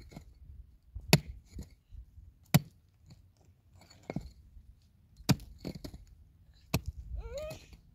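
Sharp single knocks of a tool striking wood, about half a dozen at irregular intervals. Near the end a brief wavering call is heard.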